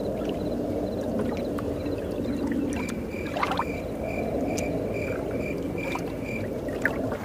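Outdoor night ambience: a steady low drone, with a short high chirp repeating about two to three times a second from about three seconds in until near the end, and a few faint clicks.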